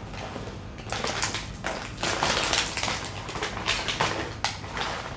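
Crinkling of a plastic snack packet being handled and rummaged in by hand, in irregular crisp bursts.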